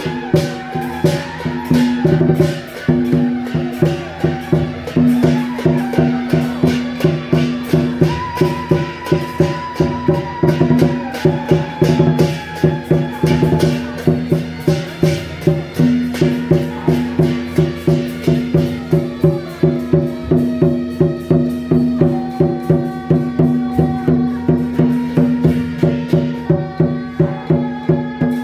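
Traditional Taiwanese temple-procession music: a fast, steady percussion beat under long held melody notes.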